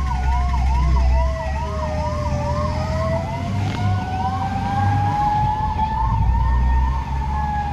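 Fire engine sirens: a fast yelp of about two or three rising sweeps a second, fading out by the middle, over a slow wail that falls and then rises again. Beneath them is the low rumble of truck engines and traffic.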